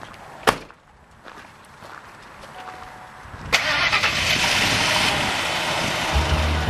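Truck engine starting: a sharp knock about half a second in, then about three and a half seconds in the engine catches suddenly and keeps running loudly.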